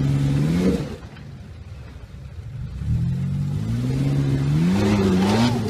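Pickup truck engine revving hard as it claws up a rock ledge. The revs rise in the first second, fall away, then build again from about three seconds in and hold high near the end.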